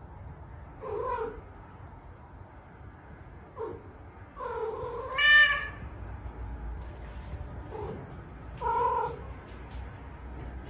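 A domestic cat meowing several times with pauses between calls; the loudest is a long drawn-out call about five seconds in that rises in pitch.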